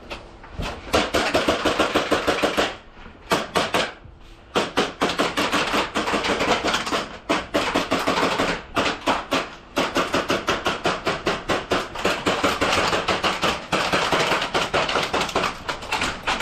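Airsoft electric gun firing on full auto: long bursts of rapid, evenly spaced cracks, broken by a few short pauses.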